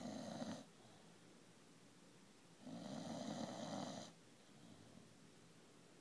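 Bulldog snoring: the tail of one snore at the start, then one full snore about a second and a half long around three seconds in.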